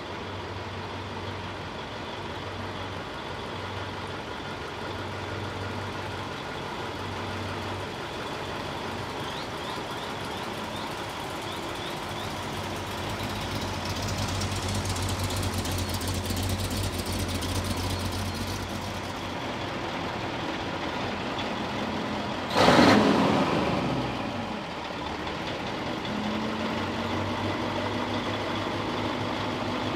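Mack prime mover's diesel engine running at low revs as the truck rolls slowly past, getting louder and hissier as it comes closest. About three-quarters of the way through there is a sudden loud burst of noise that dies away over a second or two.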